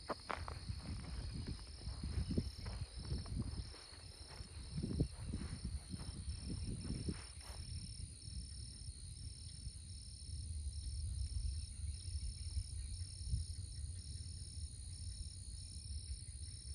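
Insect chorus of crickets or katydids: a steady high buzz with a regular pulsing chirp a little over once a second. Footsteps and rustling sound over it for about the first half, then stop.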